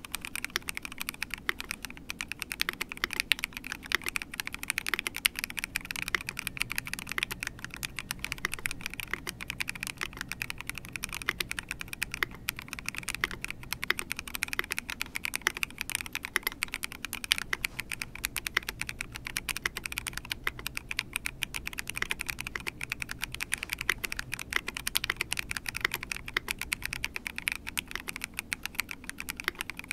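Fast, continuous typing on a Monstar Aqua 67 mechanical keyboard with a transparent housing: a rapid, unbroken stream of keystroke clicks.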